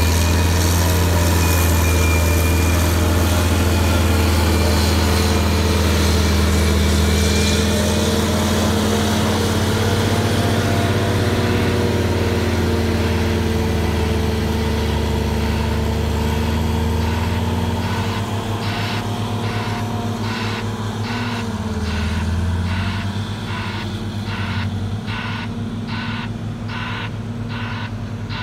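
Heavy diesel earthmoving machinery running, a loud steady drone that fades about two-thirds of the way through. Then a pulsing reversing alarm starts, at about two pulses a second, while an engine keeps running more quietly.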